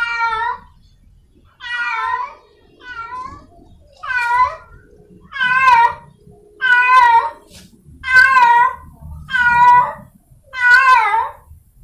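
Domestic cat in heat calling for a mate: a string of about nine loud, drawn-out meows, each under a second long with a wavering pitch, repeated roughly every second and a half.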